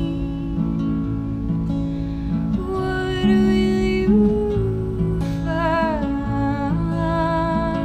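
A woman singing a slow melody with long held notes, some with vibrato, over a strummed acoustic guitar.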